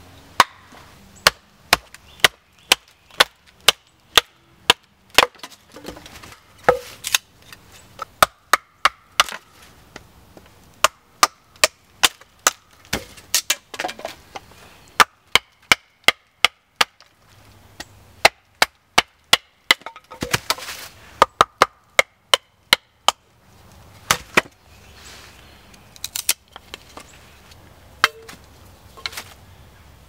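Batoning: a wooden baton strikes the spine of a knife again and again to split a stick of firewood into kindling. Sharp, separate wooden knocks come roughly two a second, with a few short pauses.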